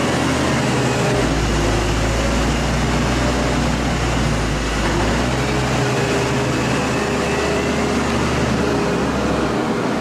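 Tractor engine running steadily, a low drone under a wide noisy hum, with the low note shifting about a second in and again around six seconds.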